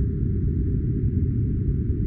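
Steady synthetic noise track, filtered to a deep, dull hiss with almost nothing above the low range, used as sleep and study noise. It holds even, with no changes.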